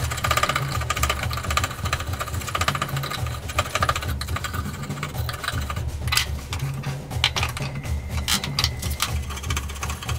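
Steel file rasping along a wooden hatchet handle in quick back-and-forth strokes, shaping it to fit the hatchet head, with a few sharper clicks of the tool partway through.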